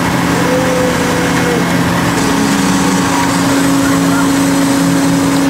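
Machinery of a menhaden purse-seine vessel running steadily: a loud, even engine drone with two constant low hums.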